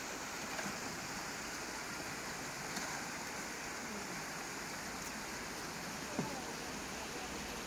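Steady outdoor background hiss, with a few faint, brief sounds now and then.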